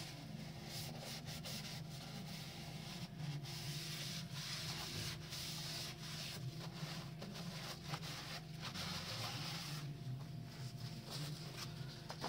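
Paper shop towel rubbed and twisted around the inside of a freshly honed engine cylinder bore, an irregular scratchy wiping that cleans out honing oil and grit. A steady low hum runs underneath.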